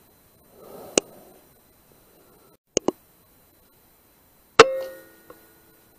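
A single sharp rifle shot about halfway through, with a metallic ring that dies away over about half a second. Two quick clicks come a couple of seconds before it, and a softer knock about a second in.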